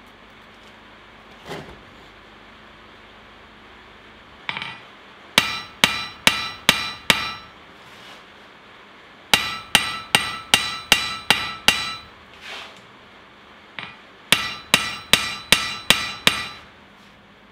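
Blacksmith's hand hammer forging a hot steel brush handle on the anvil in three quick runs of about five, seven and six blows, each blow ringing.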